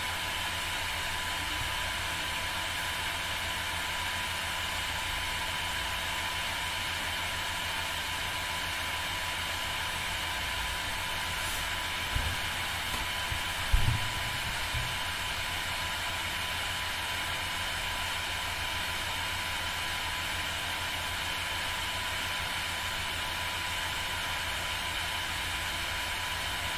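Steady hiss with a low hum and a faint, thin steady tone underneath. Two brief dull thumps come about twelve and fourteen seconds in.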